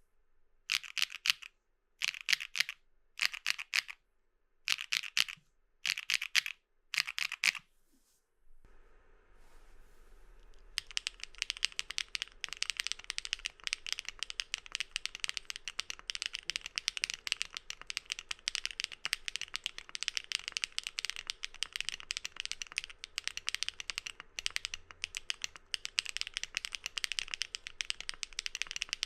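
Mechanical keyboard with Keygeek Muse lubed linear switches (UPE stem) being typed on. First come short bursts of keystrokes about once a second on a Tess65 top-mounted with an aluminium plate. After a short pause about nine seconds in, it switches to continuous fast typing on the gasket-mounted PP-plate build.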